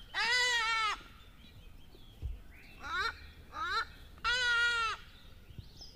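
A goat bleating: two long, wavering bleats, one at the start and one about four seconds in, with two short rising calls between them.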